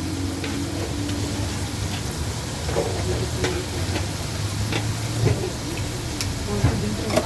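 A steady hiss over a low hum, with scattered light clicks and taps.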